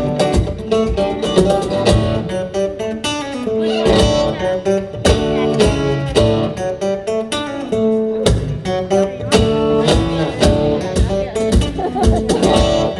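Live band playing an instrumental passage, an acoustic guitar strumming over steady drum beats.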